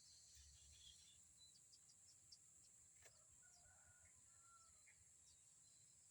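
Faint outdoor ambience: a steady high-pitched insect drone with scattered short bird chirps and two brief whistled bird notes about halfway through, over a low wind rumble.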